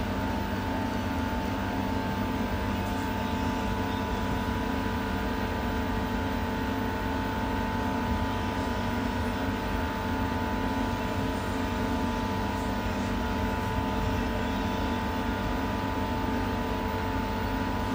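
Electric driverless metro train running through a tunnel, heard from inside the front car: a steady low rumble with a constant electric motor whine.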